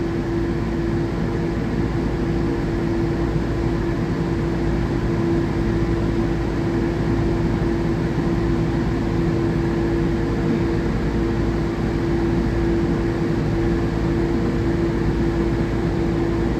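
Steady hum inside a Newark AirTrain monorail car standing at a station, its ventilation and onboard equipment running with one constant droning tone.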